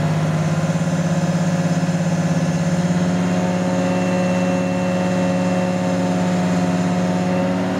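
Detroit Diesel engine of a 1978 P&H T300A hydraulic truck crane idling steadily, its speed rising slightly about three seconds in, with a faint high whine for a couple of seconds in the middle.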